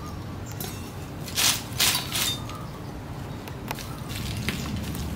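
Lumps of charcoal being handled and dropped onto a smoking fire: dry scraping and clattering, loudest in two short bursts about one and a half and two seconds in, then a few light clicks.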